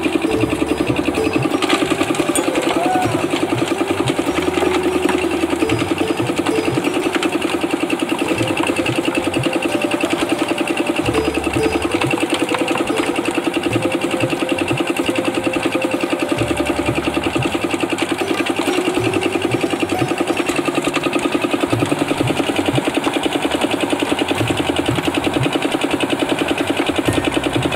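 Drum concrete mixer's engine running steadily at an even, fast beat while the drum turns.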